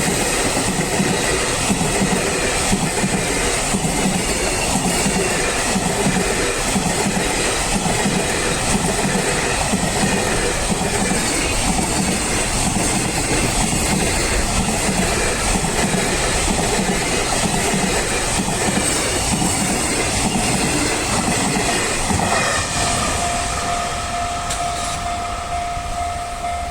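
A long train running past over a level crossing, its wheels clicking over the rail joints in a steady rhythm. About 22 seconds in, the last cars clear and the train noise fades, leaving the crossing's warning signal sounding a steady tone.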